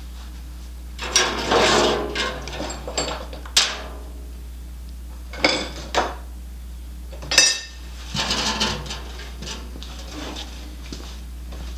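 Loose metal parts being handled: a series of irregular clanks and clatters, loudest about one and seven seconds in, over a steady low hum.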